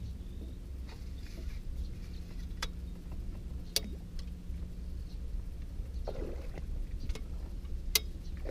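Steady low rumble and faint hum on a small fishing boat, with a few sharp knocks from gear handled on deck, the loudest near the end.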